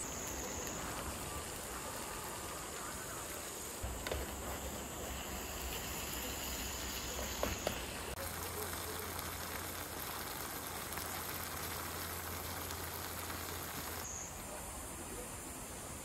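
Steady outdoor hiss of a forest campsite, changing character a few times, with a low rumble through the middle part. About seven and a half seconds in, two or three sharp clicks sound as a spatula knocks against the metal cooking pot while stirring a stew.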